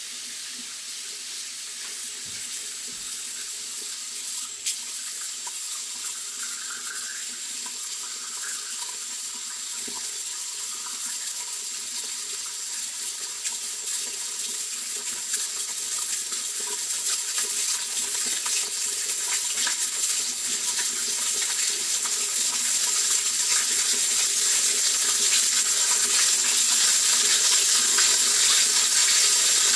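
Running water, a steady hiss that grows gradually louder.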